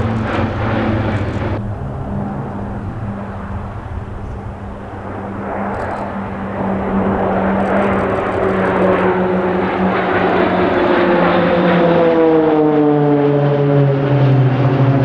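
Formation of Pilatus PC-9/A turboprop trainers flying overhead, a steady propeller drone. In the second half it grows louder and its tones slide down in pitch as the aircraft pass by.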